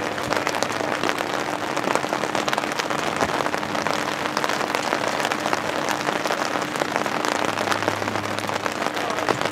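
Steady rain with many fine drop ticks close to the microphone, over a faint steady hum.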